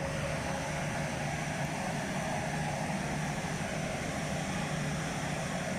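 Steady outdoor street background: an even low hum under a constant hiss, with no distinct events.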